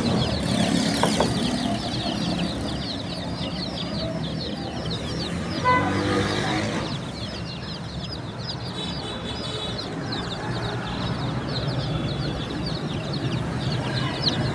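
Baby chicks peeping constantly, many short downward-sliding chirps overlapping. One louder single call stands out about six seconds in.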